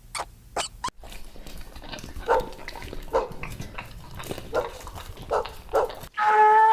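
A farm animal gives short calls in a series, one every half second to a second, over a steady low background. Near the end a different animal gives a loud, long, steady pitched call.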